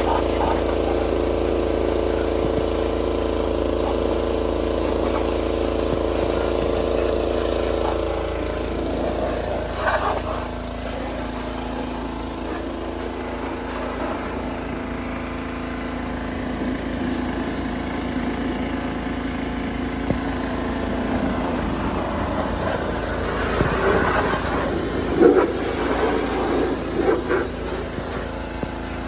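An engine running steadily, its tone shifting about eight seconds in, with a few short knocks near the end.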